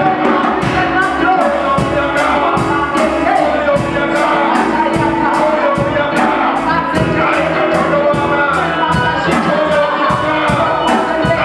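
Church worship music: a band playing with a steady drumbeat while voices sing.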